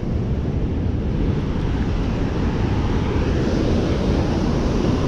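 Steady rush of river water pouring through a dam's outlet gates and churning white below the spillway.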